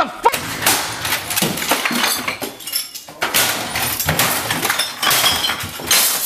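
Chaotic crashing and clattering with glass clinking, many sharp knocks in quick succession, as a man thrashes about a room cluttered with bottles. A short rising yell comes right at the start.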